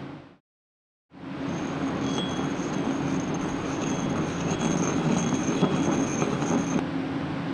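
Baggage carousel conveyor running with a steady rumble. From about a second and a half in until near the end, a thin high squeal of small wheels rolling sits over it. The sound cuts out completely for under a second at the start.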